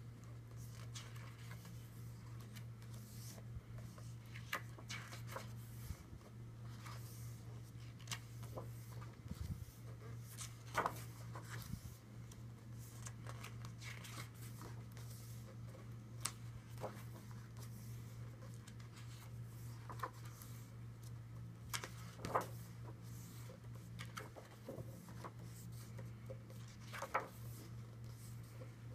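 Glossy pages of a thick musical program brochure being turned by hand every few seconds, with short paper rustles and slides, over a steady low hum.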